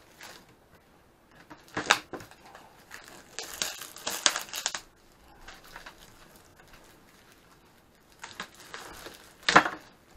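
Plastic shrink-wrap being torn and crinkled off a hard plastic tool case, in irregular bursts: a sharp rip about two seconds in, a run of crinkling around four seconds, and the loudest rip near the end.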